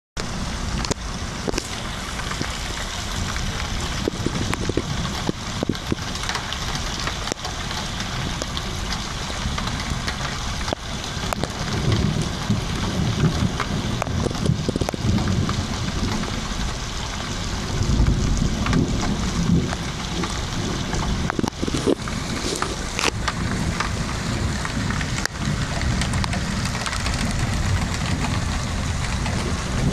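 Floodwater rushing across a paved driveway and pouring into a gap between lifted paving slabs: a steady rushing noise, with a low rumble that swells twice, about twelve and eighteen seconds in.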